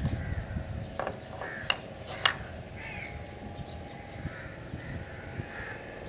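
Crows cawing in the background, with a few sharp clicks about a second and two seconds in as wiring connectors are handled.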